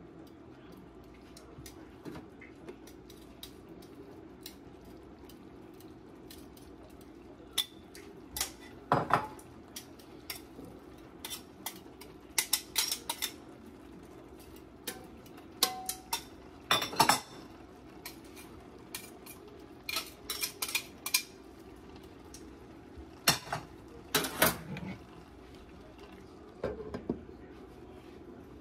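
Metal tongs clinking and scraping against a cast-iron skillet as food is turned and stirred, in irregular clusters of sharp clicks. A glass lid is set on the skillet near the end, over a steady low hum.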